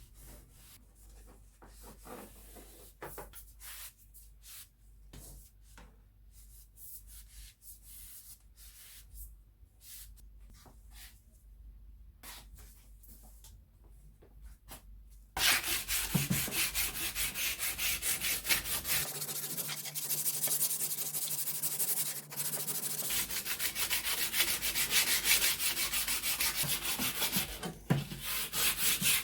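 Faint scattered taps and rubs of handling, then about halfway through loud, steady sanding of a wooden pool cue starts abruptly.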